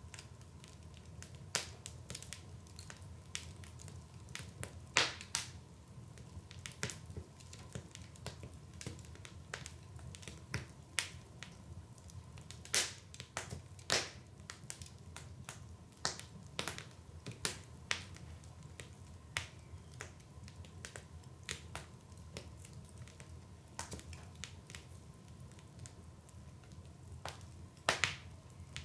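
Wood fire burning in a fireplace, crackling with irregular sharp pops and snaps, a few louder pops scattered through, over a low steady hum.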